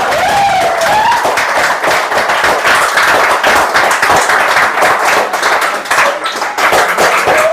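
POCO X3 smartphone loudspeaker playing a ringtone loudly, a short melody at first and then a dense run of percussive hits, its sound thin and mid-range as from a small phone speaker; it is the speaker working again after the audio-section repair.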